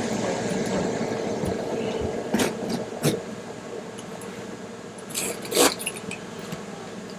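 Carpet being handled and rubbed against the floor as it is fitted, with a few sharp clicks and knocks: two a couple of seconds in and a short cluster near the end.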